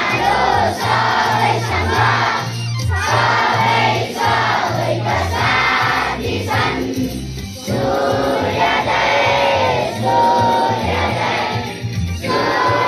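A large group of schoolchildren singing in unison, phrase by phrase with short breaks between lines.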